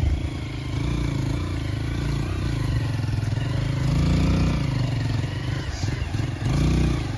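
Small motorcycle engine running, its pitch rising and falling several times as the throttle is opened and eased off.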